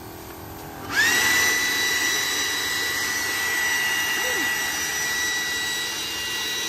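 Ryobi 40-volt battery leaf blower carrying a misting adapter, spinning up to full speed about a second in: a quick rising whine that settles into a steady high whine over the rush of air.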